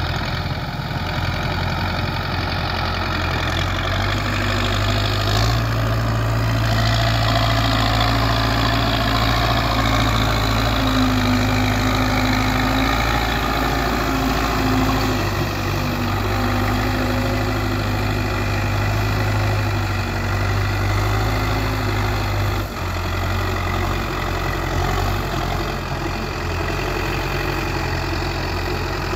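Belarus 510 tractor's diesel engine running steadily while pulling a trolley heaped with soil. Its note grows louder for two long stretches in the middle, easing briefly between them.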